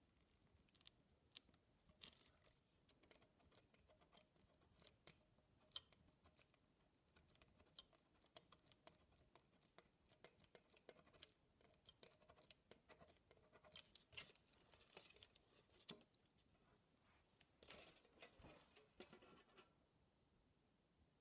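Faint, irregular scratching and crinkling of a ballpoint pen tip pressing lines into thin metal foil cut from a tomato purée tube.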